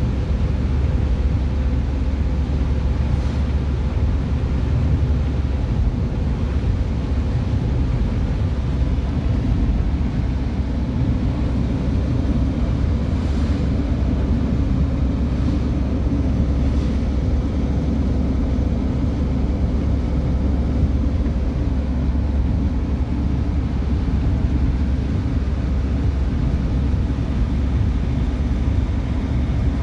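Steady low rumble of a car driving on a wet road, heard from inside the cabin: engine and tyre noise, with a faint steady hum.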